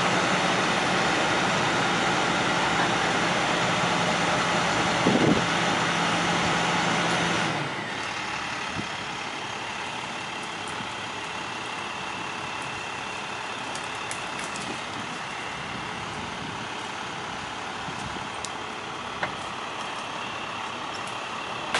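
Utility boom truck's engine running at raised speed, then dropping about seven seconds in to a lower, steady idle. A short knock is heard about five seconds in.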